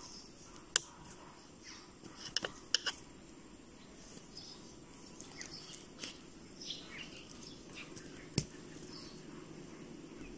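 Faint handling sounds of a crochet hook and yarn being worked: a few sharp clicks, several in a quick cluster about two and a half seconds in, with light rustling. Faint bird chirps and a low steady room hum sit underneath.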